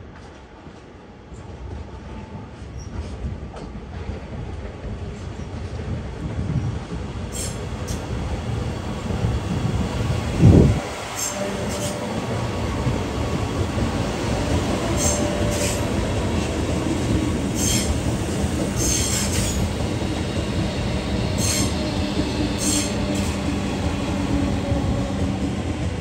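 Alstom Metropolis Sydney Metro train approaching and passing close by over curved points. Its rumble builds, a brief loud low rush comes about ten seconds in, then a steady hum from the passing cars with repeated high wheel squeals.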